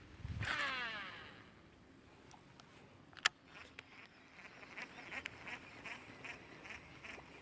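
Fishing reel during a lure cast: a falling whine as the spool spins out and slows, a sharp click about three seconds in, then quick even ticks, about three a second, as the line is wound back in.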